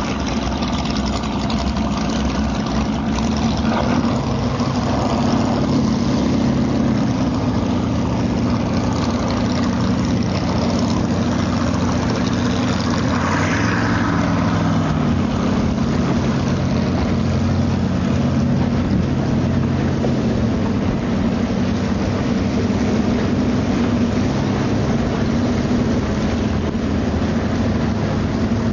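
Jet boat's big-block Ford V8 running steadily under way. The engine note rises and falls briefly about halfway through.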